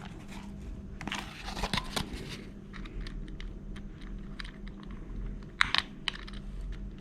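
Small irregular clicks and light handling noises of clock parts as the hands are fitted onto a quartz wall clock movement's shaft. There is a cluster of clicks about a second in, and one sharp click a little after five seconds in.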